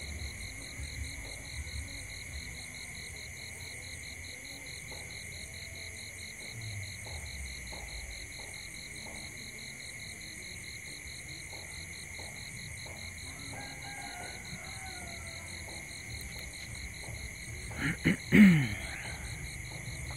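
Night insect chorus: a steady, high-pitched, evenly pulsing trill from crickets and other insects. Near the end, a short loud sound with falling pitch comes twice in quick succession.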